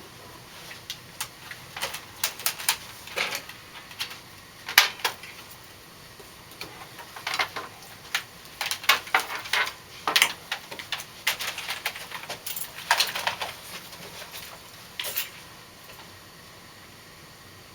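A string of sharp, irregular clicks and knocks in clusters, some in quick runs, dying away about fifteen seconds in.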